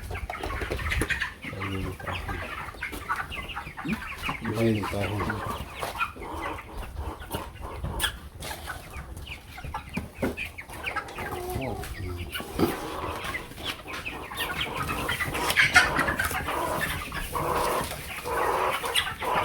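A flock of young broiler chickens clucking and cheeping continuously, with a few sharp knocks.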